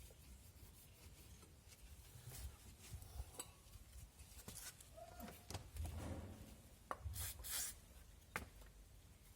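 Faint hand work on a drum brake: light rubbing and scraping, with scattered small clicks of metal parts and tools, and one short, louder scrape about three-quarters of the way in. It is the cleaning of the contact points where the rear brake shoes rub on the backing plate, done to cure a squeak.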